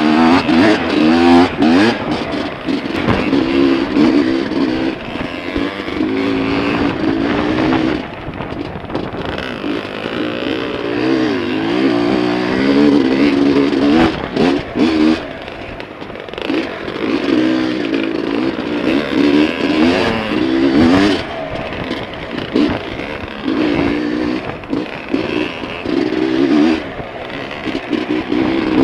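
Dirt bike engine revving up and down over and over as it is ridden along a rough trail, with knocks and rattles from the bike working over the bumpy ground.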